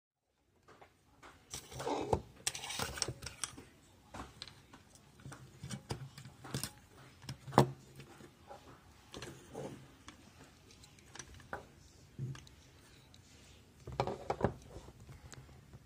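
Irregular clicks, knocks and rattles of small hard parts and tools being handled, with a faint low hum that comes and goes.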